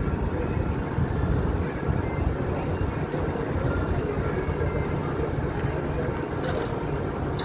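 Steady low rumble of a tugboat's diesel engines working to pull a container ship off its berth.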